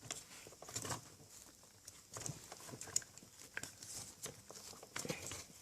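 Faint scattered clicks and scrapes of a cardboard Pringles-tube sleeve being worked over an RC car's rear tyre by hand, a tight fit.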